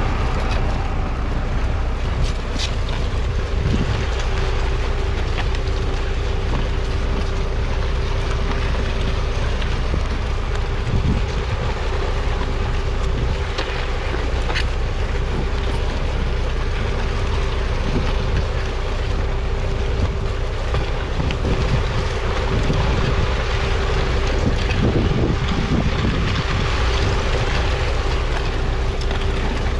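1993 Massey Ferguson 3060's 4.1-litre four-cylinder diesel engine running steadily under load, pulling a four-furrow plough through the soil. A steady whine sits over the engine, and wind buffets the microphone.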